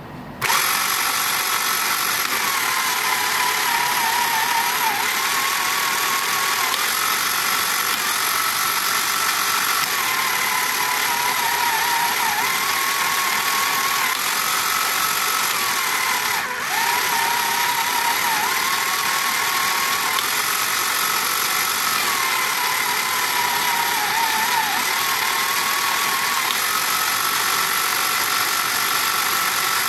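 A 1979 Tomy Hit and Missiles toy's small electric motor and gear train switch on about half a second in and run steadily, with a whine that rises and falls every couple of seconds and falters once midway. The toy is running on a replacement motor with its gears reset.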